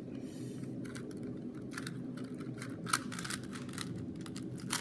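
3x3 Rubik's Cube being turned by hand: a quick, irregular run of plastic clicks and clacks as the layers are twisted, over a steady low hum.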